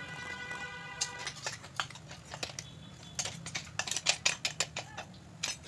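Metal spoon tapping and scraping while ground biryani masala powder is spooned into a ceramic bowl: irregular sharp clicks, thickest a little after the middle. A brief steady ringing tone is heard for the first second.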